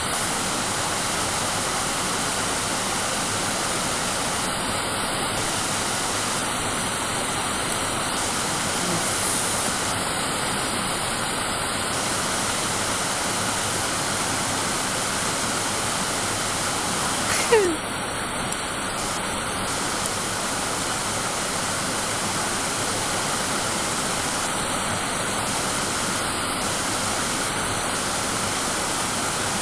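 Waterfall water rushing in a steady, even roar. About seventeen seconds in, a brief louder sound cuts through, sliding quickly down in pitch.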